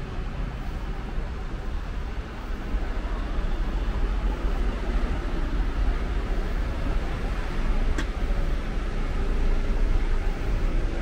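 Steady road traffic noise, with one short sharp click about eight seconds in.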